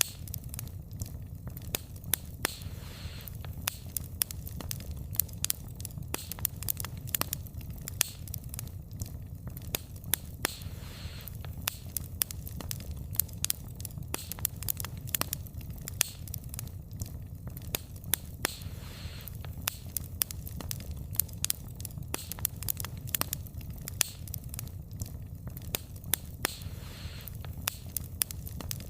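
Wood fire burning, with frequent sharp crackles and pops of the burning logs over a steady low rumble of the flames.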